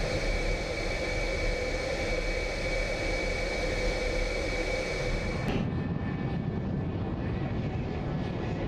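Jet aircraft engine running with a steady high whine over a broad rush of noise. About five and a half seconds in, the sound changes abruptly to a duller rumble without the whine.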